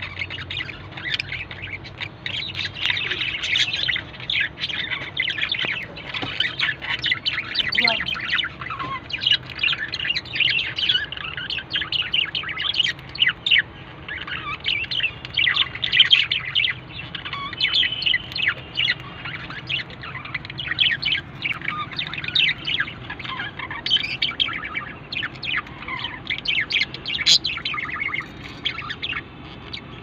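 Budgerigars chirping and chattering, a steady stream of quick, high chirps.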